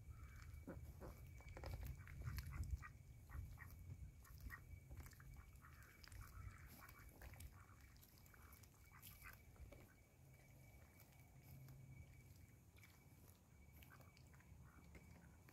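Cayuga ducks dabbling and drinking at a water pool: faint scattered clicks and slurps of their bills in the water.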